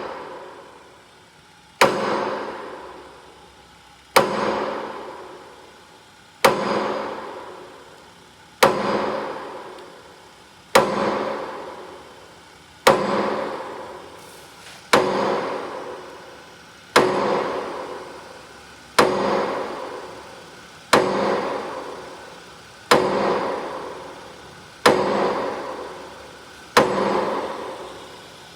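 Metal struck hard over and over, about one blow every two seconds, each ringing out and fading before the next.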